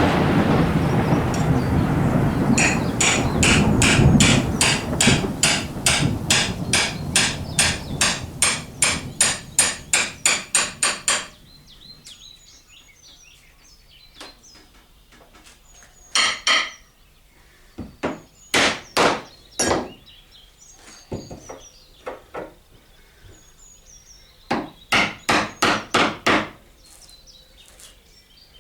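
Loud rushing noise for the first couple of seconds. Then a hammer strikes in an even run of about three blows a second for some eight seconds, each blow with a bright ring. After a pause come a few shorter groups of hammer blows.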